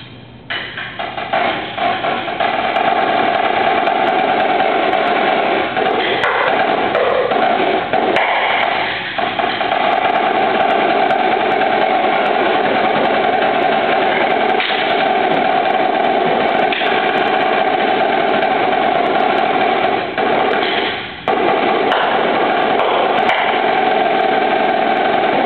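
Marching snare drum played solo: a few separate strokes, then fast, dense rolls and stickings that run almost without a gap, broken by a brief sudden dropout about 21 seconds in before the playing picks straight back up.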